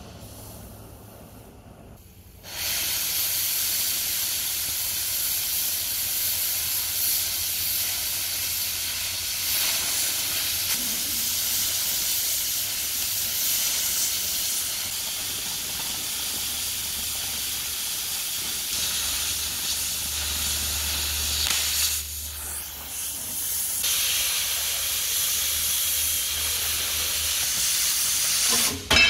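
Oxy-fuel cutting torch cutting through steel plate. A quieter flame hiss jumps to a loud, steady hiss about two and a half seconds in, falls off briefly about three-quarters of the way through, and stops abruptly near the end.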